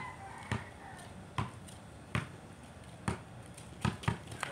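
Basketball being dribbled on a concrete court: seven bounces, about one every 0.8 s at first, then three in quick succession near the end.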